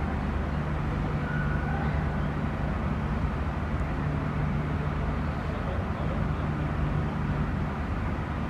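Steady low rumble with a constant low hum beneath it, unchanging throughout.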